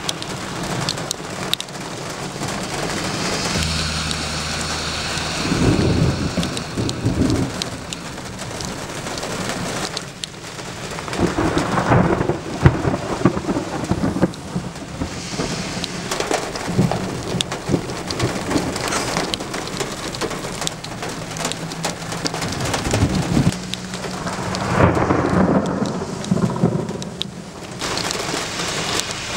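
Thunderstorm: steady rain hiss with thunder rolling in three long rumbles, about six seconds in, around twelve seconds in, and near the end.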